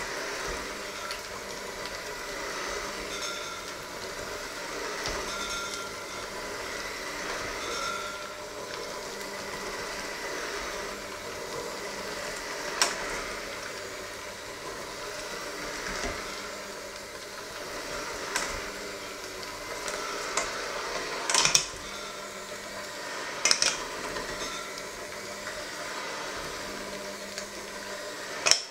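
Electric hand mixer running steadily, its beaters churning a thick flour mixture in a stainless steel bowl. Several sharp clacks in the second half as the beaters knock against the metal bowl.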